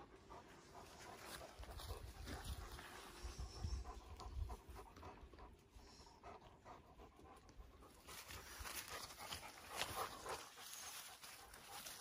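Turkish shepherd dog panting, faint, with short scuffing noises in the last few seconds.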